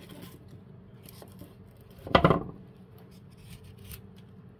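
A Scandi-ground bushcraft knife shaving a feather curl off a wooden stick: one short, sharp cutting stroke about two seconds in, with faint scrapes of the blade on the wood around it.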